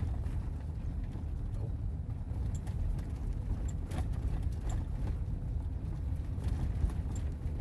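Steady low rumble of a moving vehicle heard from inside the cab, with scattered faint clicks and ticks.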